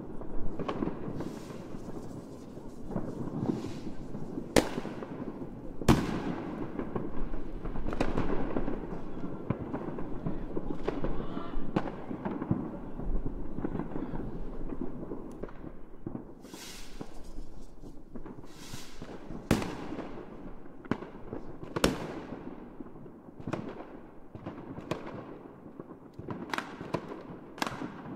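Fireworks going off: a string of sharp bangs at irregular intervals, several of them loud, over continuous crackling and hissing between the bursts.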